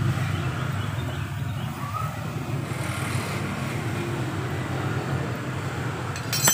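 Steady low hum of a running motor-vehicle engine, with a brief metallic clink near the end.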